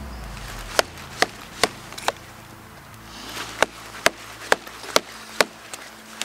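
Wood being chopped: sharp blows on wood at about two a second, a run of four, a short pause, then a run of five.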